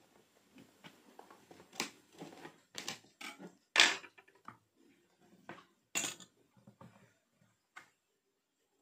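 Clacks and knocks of a plate and a plastic cutting board being handled and set down on a tabletop: a handful of separate sharp knocks with light rustling between them, the loudest about four seconds in.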